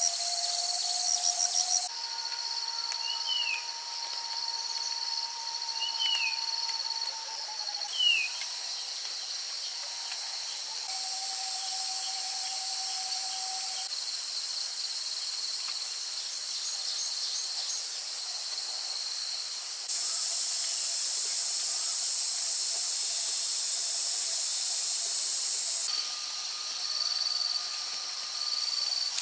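Outdoor ambience dominated by steady, high-pitched insect buzzing and trilling, with three short falling bird chirps in the first ten seconds. The insect din changes abruptly in loudness a few times.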